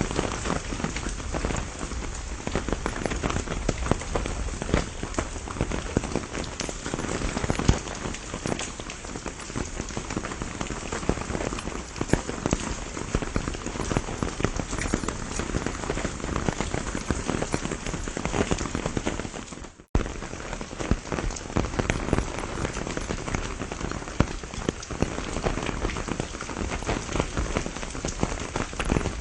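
Steady rain shower, a dense patter of many drops. The sound cuts out for a split second about twenty seconds in.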